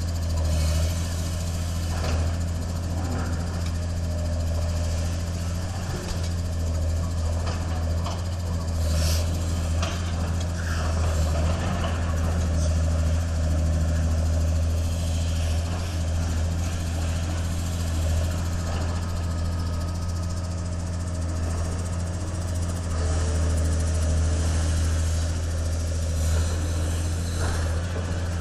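Diesel engine of a tracked demolition excavator running steadily, with a deep, even hum and a few faint knocks.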